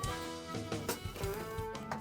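Background music: an upbeat jazzy tune with horns and a steady drum beat.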